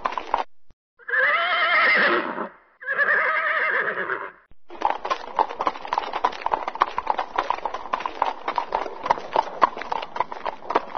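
A horse neighs twice, two long whinnies that waver in pitch, then its hooves clip-clop in a fast, steady run of hoofbeats that carries on to the end.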